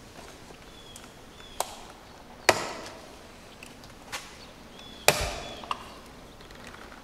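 A handful of sharp knocks, about five, two of them loud with a short ringing tail about two and a half and five seconds in. Small birds chirp in short high calls between the knocks.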